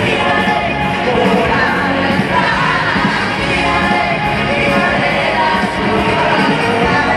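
Live pop band playing with a steady beat while women sing lead vocals into microphones, heard through a concert sound system in a large venue.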